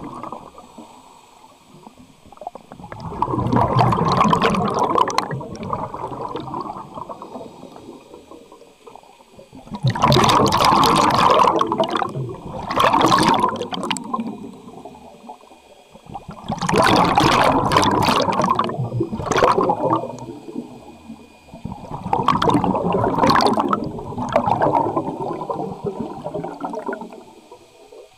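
Scuba regulator exhaust bubbles from a diver breathing underwater: four long gurgling rushes of bubbles as the diver exhales, about every six to seven seconds, with quieter stretches between breaths.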